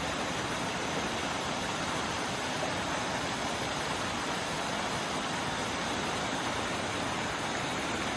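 Waterfall rushing: a steady, even noise of falling and splashing water.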